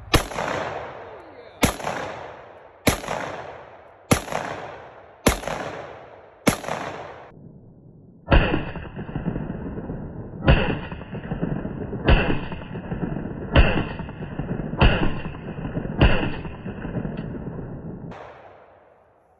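Kalashnikov USA Komrad 12, a semi-automatic AK-pattern 12-gauge shotgun, fired twelve times in steady succession, about one shot every second and a half, each blast trailing off in a ringing echo. After the sixth shot there is a slightly longer pause before six more.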